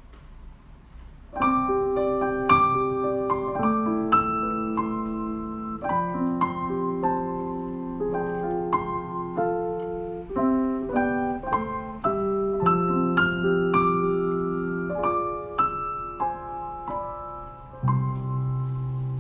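Solo piano playing a slow piece in held, sustained chords, starting about a second and a half in.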